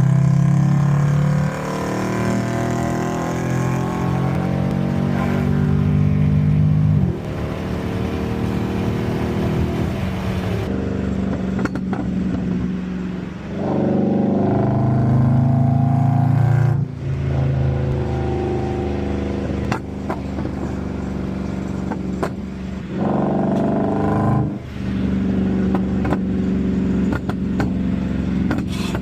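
Lexus GS400's 1UZ-FE 4.0-litre V8 running through an exhaust of two 3-inch resonators into 4-inch tips, giving a deep, truck-like note. It pulls hard several times with the pitch rising, each pull ending in a sudden drop as the throttle closes or a gear changes.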